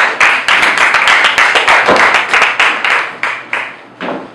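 Audience applauding, dense at first, then thinning out and fading to a few scattered claps near the end.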